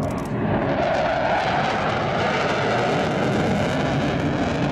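Jet noise from a Panavia Tornado's twin RB199 turbofan engines during a display pass: a loud, steady roar with no breaks.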